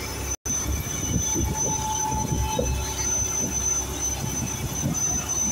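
Steady low rumble of a mechanised fishing boat's engine with a faint high whine over it. The sound cuts out for a moment about half a second in.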